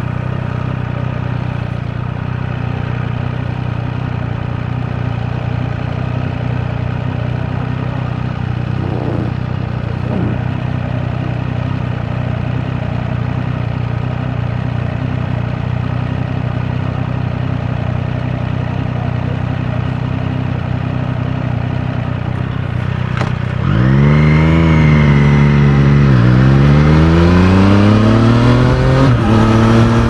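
Triumph Street Triple 765 RS's three-cylinder engine idling steadily. In the last quarter it revs up as the bike pulls away, rising in pitch, dropping at an upshift, then rising again, with another upshift near the end.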